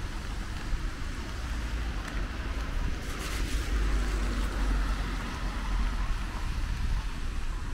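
Rainy street ambience: a steady hiss of rain over a low rumble, swelling louder from about three to six seconds in.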